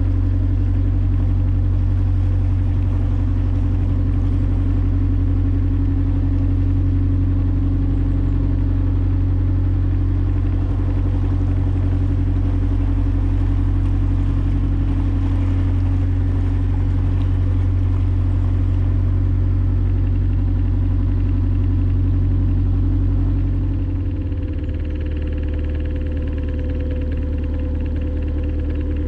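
Narrowboat's diesel engine running steadily at cruising speed, heard from the stern. About 24 seconds in its note changes and it drops slightly in level.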